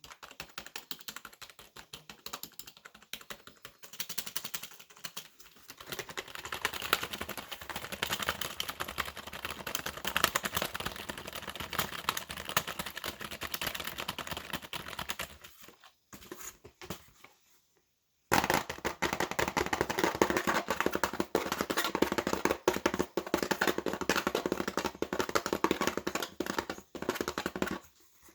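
Computer keyboard typed on fast and hard: a dense, rapid run of keystroke clicks. The typing is softer for the first few seconds, stops for about two seconds past the middle, then resumes louder.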